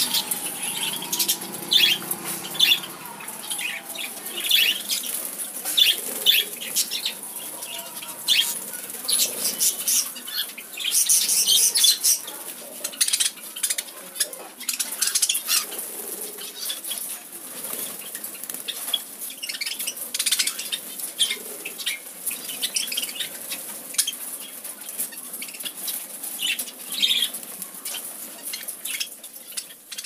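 Budgerigars flapping their wings as they fly about and land, with scattered short high chirps mixed in.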